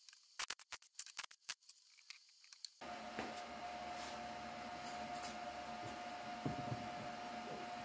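Welded steel ring frame clinking as it is handled, a quick run of sharp metal clicks. After about three seconds this gives way to a steady hum of room noise with a faint knock or two as the frame goes into a plastic trash can.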